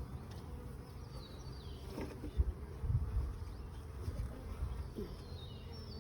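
Honeybees buzzing steadily around an open hive, with a few dull bumps from handling about two to three seconds in.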